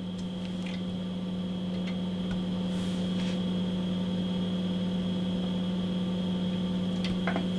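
Steady electrical hum with an even hiss from powered-up radio test-bench electronics, with a few faint light clicks.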